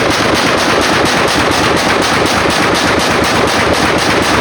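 Draco AK-pattern pistol in 7.62×39 fired in a fast, unbroken string of shots, about five a second, enough to heat the gun.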